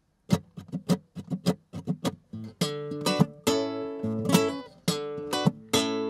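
Acoustic guitar playing the intro of a song: short, choppy strums at first, then fuller ringing chords from about two and a half seconds in.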